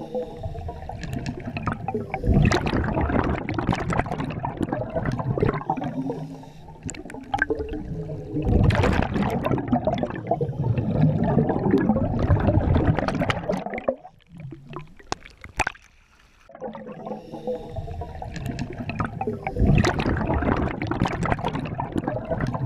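Scuba diver's regulator heard underwater: three long, gurgling rushes of exhaled bubbles, with a near-quiet pause between breaths about two-thirds of the way through.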